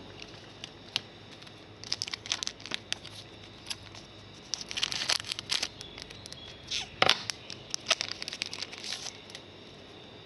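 Foil trading-card pack from a 2015 Panini Donruss Soccer box crinkling and being torn open by hand, in irregular clusters of sharp crackles and rustles.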